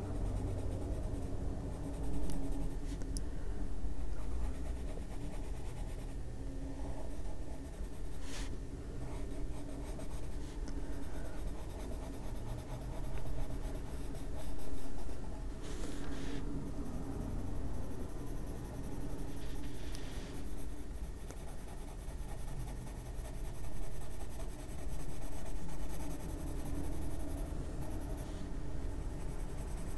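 Albrecht Dürer watercolour pencil shading on a coloring-book page: a soft scratching of pencil lead on paper that swells and fades with the strokes, with a few light taps.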